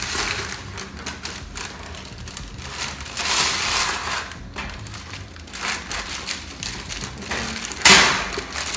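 Wax paper being pulled off its roll and torn against the box's serrated cutting edge: irregular crinkling and rustling, with a louder burst near the end.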